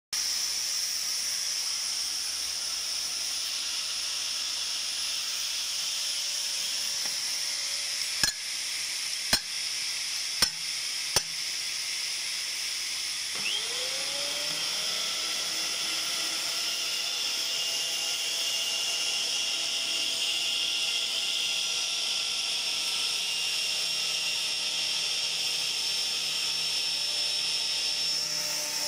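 Electric pipe threading machine running with a steady high hiss. Four sharp clicks come about eight to eleven seconds in. From about thirteen seconds the die head cuts a thread on a steel pipe, adding a steady pitched whine that rises briefly as the cut starts and then holds.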